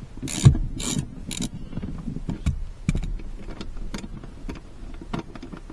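Irregular mechanical clicks and knocks of hands and tools working at a car seat's fittings: three louder knocks in the first second and a half, then lighter, scattered clicks.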